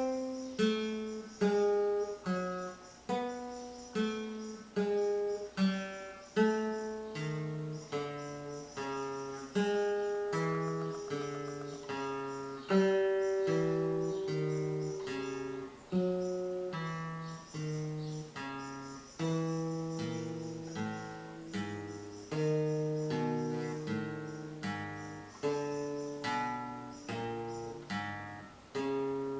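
Acoustic guitar played slowly fingerstyle: single plucked melody notes over lower bass notes, a new note about every half second to second, each ringing and fading.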